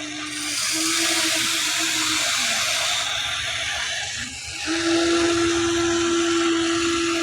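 Small electric motors and plastic gearboxes of a Huina 1594 RC excavator whirring with a steady whine. The whine breaks off briefly a little over four seconds in, then comes back slightly higher and louder.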